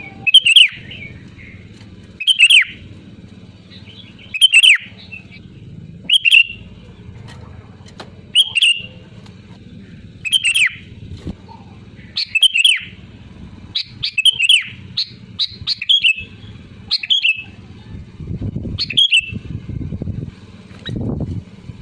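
Sooty-headed bulbul calling: a short, loud call repeated about every two seconds. A low rumble sits underneath and grows louder near the end.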